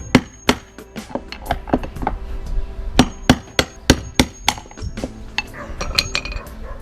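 A hammer strikes a steel drift in a series of sharp metallic blows, about two a second and unevenly spaced, some leaving a brief high ring. The blows are driving the stuck outer ring of a destroyed drum bearing out of a Drean washing machine's tub, working one side and then the other.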